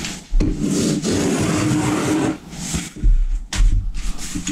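Paper being pulled off a large roll and slid across a wooden tabletop: about two seconds of continuous rubbing and scraping, followed by low thumps as the paper and roll are handled on the bench.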